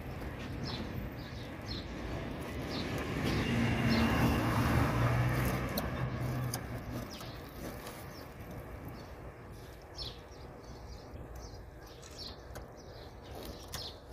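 Small birds chirping in short, repeated calls over a low engine hum that swells and fades a few seconds in.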